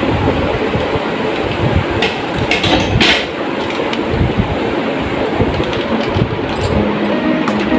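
A steady, loud rushing noise runs under a plastic yogurt pouch rustling as it is cut open with scissors and squeezed into a plastic bowl, with a short crinkle of plastic about two to three seconds in.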